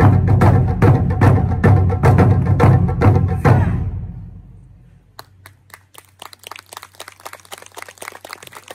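Taiko ensemble striking large barrel drums in a steady, loud beat that ends about three and a half seconds in and rings away. Audience clapping follows, much quieter.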